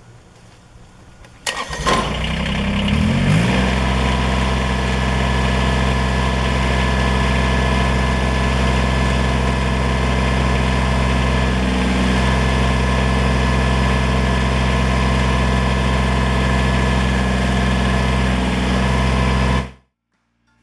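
Kubota BX23S compact tractor's three-cylinder diesel engine starting about a second and a half in, rising to speed, then running steadily. The sound cuts off abruptly near the end.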